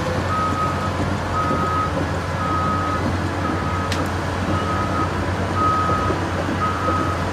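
Concrete mixer truck's diesel engine running steadily while it discharges, with a beeping alarm sounding about once a second. A single sharp click comes about four seconds in.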